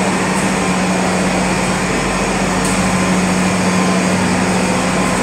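Olive-oil mill machinery running, a loud steady mechanical hum with a constant low drone.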